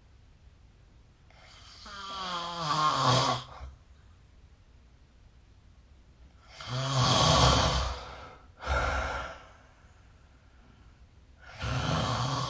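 A sleeping person snoring, with breaths a few seconds apart. The first snore has a buzzing pitch that slides, and the second is the loudest and is followed at once by a shorter breath out. Another snore starts near the end.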